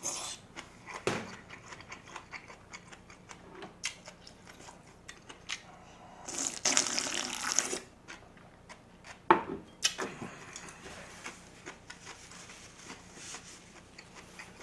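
Eating sounds: scattered clicks of chopsticks and dishes, then a loud slurp of cold dongchimi (radish water kimchi) broth drunk straight from the bowl, lasting about a second and a half past the middle. A couple of seconds later come two sharp knocks, the louder first.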